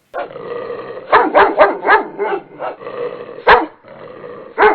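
A dog barking: a quick run of barks about a second in, then a few single barks spaced out.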